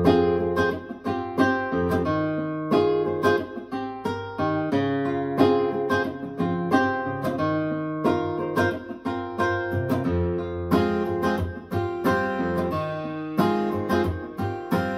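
Plucked acoustic guitar music played through an Icon Audio MFV 3 Super floorstanding loudspeaker, a quick run of ringing notes.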